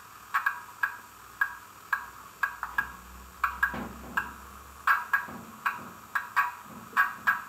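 Pop-valve sound effect of a class 08 diesel shunter, played by the model locomotive's sound decoder through its small onboard speaker: an irregular run of sharp pops, two or three a second.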